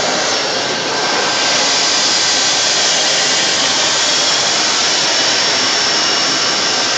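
Vacuum sack lifter's blower running with a steady, loud rush of air and a faint high whine on top, growing a little louder about a second in while it grips and lifts a sack.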